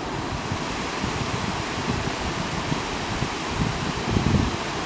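Mountain river swollen after heavy rain, rushing over a small stepped cascade: a steady rush of falling and churning water, with a low rumble that swells about four seconds in.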